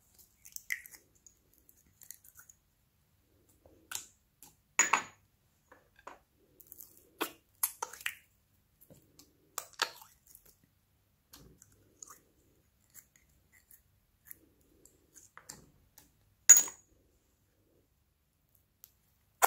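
Thick glossy slime squishing and popping with small sticky clicks as it is worked out of small glass cups by hand. Two sharper clinks of a glass cup against the glass bowl ring out, once about five seconds in and again near the end.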